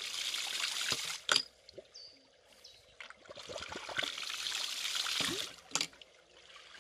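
Homemade 5/4-inch ram pump working in its cycle: water gushes out in two surges, and a sharp clack ends each surge, about a second in and again near the end, as the waste valve slams shut. The delivery valve has just been reopened after a pressure test.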